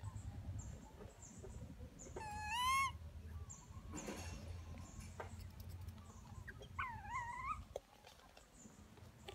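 Infant long-tailed macaque crying to nurse: two short, wavering, whistle-like calls, the louder one about two seconds in and another near seven seconds, over a low steady rumble.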